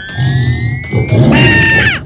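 Cartoon sound effects over background music: a rising whistle-like glide, then about a second and a half in a loud, short high-pitched shriek effect that bends down in pitch as it cuts off.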